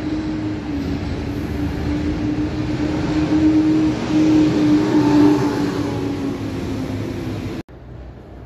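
City bus driving past close by, its engine a steady drone that grows louder as it passes about four to five seconds in. The sound cuts off abruptly near the end, leaving a quieter street background.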